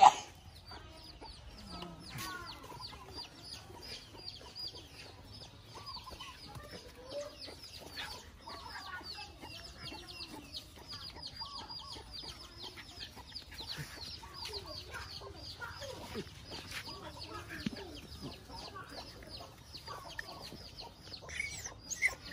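Chickens clucking in the background, with many short high chirps throughout.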